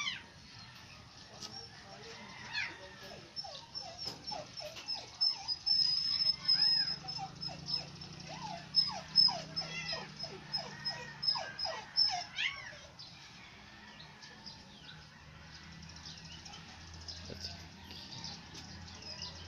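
Newborn puppy crying in a quick run of short, high squeaks that rise and fall, thinning out about two-thirds of the way through. A high, rapid chirping sounds behind it through the middle.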